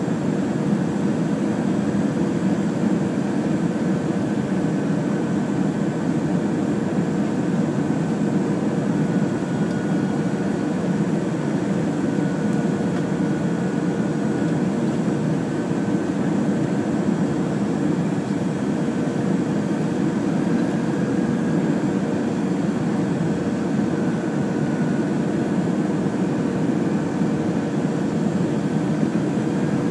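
Steady cabin noise of a jet airliner on final approach: engine and airflow noise, with a thin whine that wavers slightly in pitch now and then.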